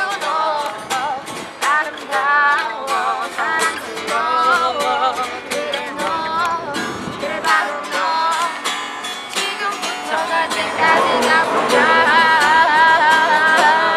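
Pop music: a singing voice over guitar. The music grows louder about two-thirds of the way through and ends on a long held note.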